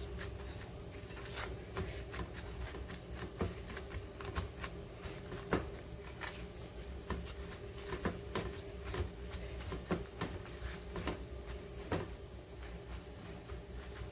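Paper towels pressed and patted onto boiled pork ribs on a plate: soft, irregular crinkles and dabs, over a faint steady hum.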